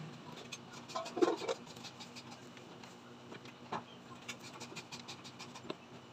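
Leafy vegetables and stems being handled: rustling leaves and light scratches and clicks as they are picked off a metal tray and dropped into a steel pot. A brief louder sound comes about a second in.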